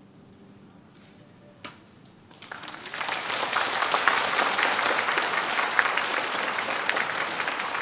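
The last held chord of a guzheng and Chinese orchestra fades away, and a single click follows. Audience applause breaks out about two and a half seconds in and keeps going strong.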